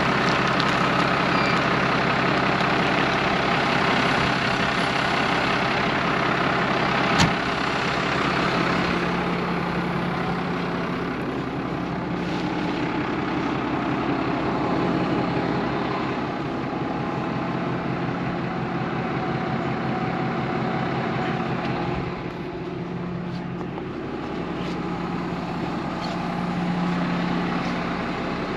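Tractor engine running steadily, with a steady hum that shifts slightly in pitch and strength. A single sharp click about seven seconds in.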